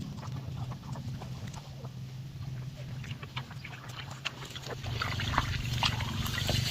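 Dry, crackling rustles of cut rice stalks being handled and piled, growing busier and louder about two-thirds of the way in, over a steady low hum.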